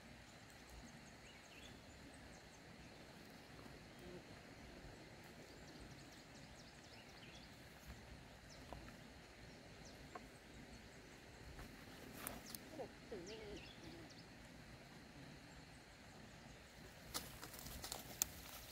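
Quiet outdoor background in a farm field, with a few faint chirps about two-thirds of the way through and a short run of sharp clicks near the end.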